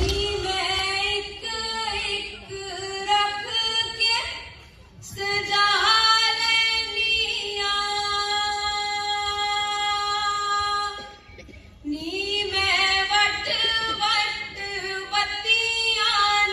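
A female voice singing a Punjabi folk song unaccompanied, with long held notes, breaking off twice for a breath or pause.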